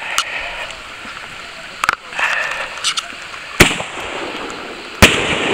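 Consumer firework cake firing in the rain: four sharp bangs of bursting shells, about one and a half seconds apart, over the steady hiss of rain.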